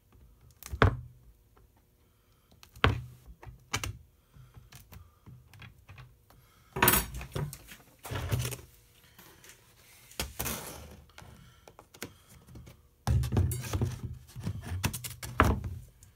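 Hands and tools knocking and rubbing on a foam RC wing on a wooden workbench while glued fiberglass rods are pressed into their slots: a few sharp knocks in the first four seconds, then longer, noisier stretches of handling.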